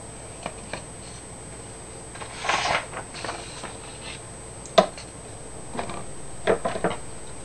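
A sheet of printer paper rustling as it is handled and laid flat on a desk, with one sharp tap about two-thirds of the way in and a few quick rustles and light knocks near the end.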